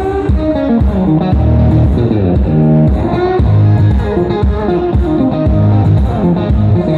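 Country music played loud over a sound system, with an electric guitar carrying the melody over bass and drums.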